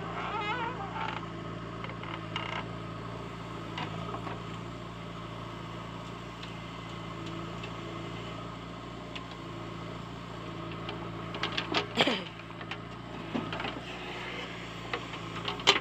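JCB 3DX backhoe loader's diesel engine running steadily under load while the backhoe arm digs and swings soil, with hydraulic creaks. About twelve seconds in there are sharp metal knocks and a falling squeal, and another sharp knock near the end.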